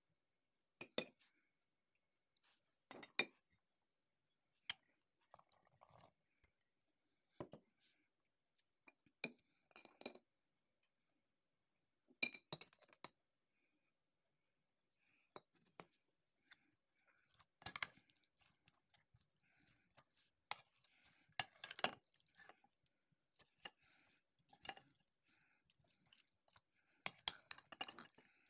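Metal spoon clinking and tapping against a bowl in short, scattered knocks while salad ingredients are spooned in and stirred, with the taps coming more often in the second half.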